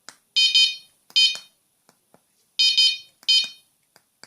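GSM security alarm's sounder giving short, high chirps in answer to key-fob button presses: a quick double chirp followed by a single chirp, twice over. Faint clicks come between the chirps.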